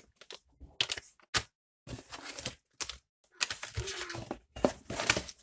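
Plastic zip-lock and foil antistatic bags crinkling and rustling in irregular bursts, with small clicks, as parts are handled and lifted out of a cardboard parcel.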